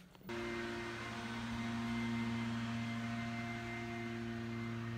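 Backpack leaf blower's small engine running steadily, heard from indoors through a closed door. It comes in abruptly a moment in and holds an even hum.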